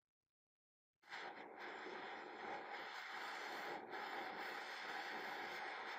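Gas torch flame hissing steadily as it heats a small brass screw to anneal it; the hiss starts suddenly about a second in.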